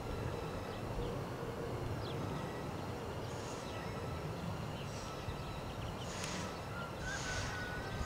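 Wind rumbling on the camera microphone, with small birds chirping now and then: a few short high chirps and quick falling notes.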